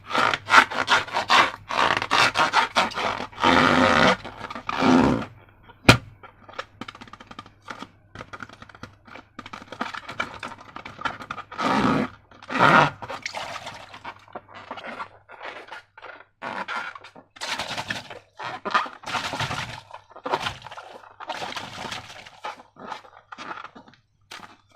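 Slime and balloons being handled: irregular short scraping and rubbing noises, with one sharp click about six seconds in.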